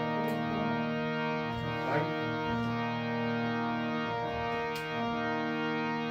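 Harmonium holding a steady sustained chord as an instrumental introduction, with a few brief bending notes about two seconds in.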